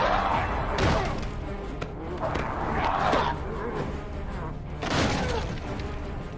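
Horror-film fight soundtrack: tense score music under heavy thuds and strained yells that surge three or four times.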